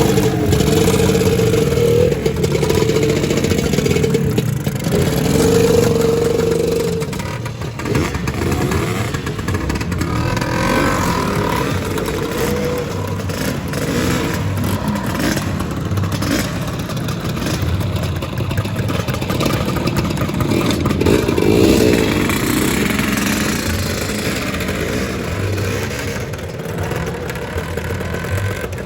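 Lambretta scooters' two-stroke engines running and revving as the scooters pull away one after another, the engine pitch rising and falling as each goes.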